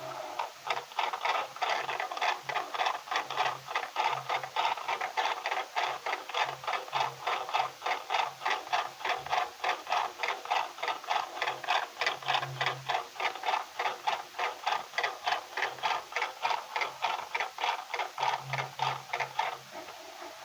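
Washing machine drum turning, heard from inside the drum by the keypad phone recording in it: a steady rhythmic clatter, about three knocks a second, with a faint low hum underneath. It starts just after the beginning and stops near the end.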